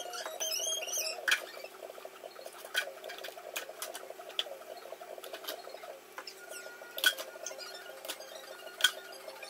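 Dishes and utensils clinking against each other and the sink as they are washed by hand, with a brief squeak near the start.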